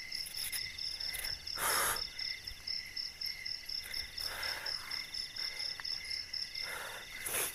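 A steady chorus of night insects chirping, with a high, fast-pulsing chirp over a softer trill. Over it come a few short bursts of rustling, loudest about two seconds in.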